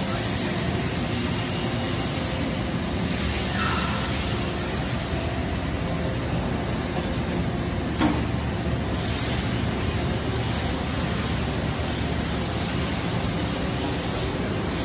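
Steady industrial hum and hiss of a machine shop floor, with a few faint steady tones running through it, and one short knock about eight seconds in.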